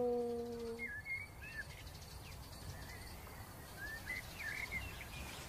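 The end of a man's imitation wolf howl, a steady low call used to draw an answer from young wolves, fading out within the first second. Then faint bird chirps over quiet forest ambience.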